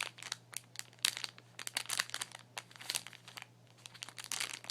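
Plastic packaging of a pack of makeup sponges crinkling and crackling as it is handled, in irregular clusters of sharp crackles.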